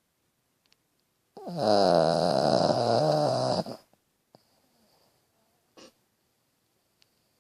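Shih Tzu snoring: one loud, drawn-out snore of about two and a half seconds, starting about a second and a half in, its pitch dropping and wavering, then a faint short breath sound near the end.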